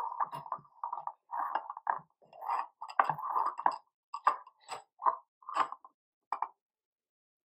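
Metal mesh strainer knocking and scraping against a ceramic bowl as it is set in place, a series of light clinks that stops about six and a half seconds in.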